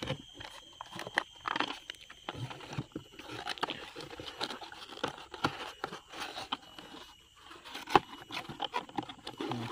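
Cardboard packaging being handled: flaps scraping and rustling and small inner cardboard boxes knocked and slid, in an irregular run of crinkles and sharp taps. The loudest knock comes about eight seconds in.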